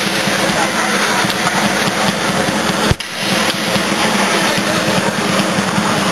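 Steady arena din at an ice hockey game: crowd noise and play in the rink. About three seconds in, an abrupt cut makes the sound drop out for an instant and then resume.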